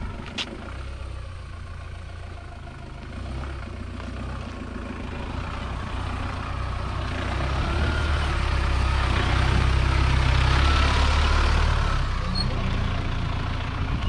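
Off-road SUV engine running under load with tyre and wind noise, growing steadily louder for about ten seconds and easing a little near the end.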